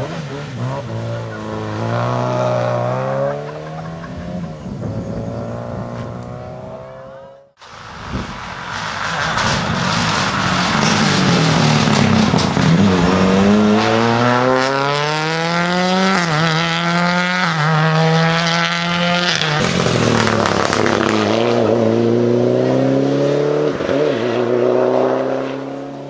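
Rally car engines at full throttle, with the engine note climbing through the gears and dropping back at each upshift. A first car accelerates away, then after an abrupt cut about seven and a half seconds in, a louder Mitsubishi Lancer Evolution rally car accelerates hard past through several gears. Near the end another car is heard pulling away.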